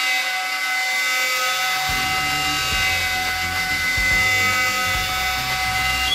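AltMill CNC router spindle at 18,000 RPM driving a 16 mm flat roughing end mill through maple hardwood. It gives a steady high-pitched whine over the noise of the cut, with a lower rumble joining about two seconds in.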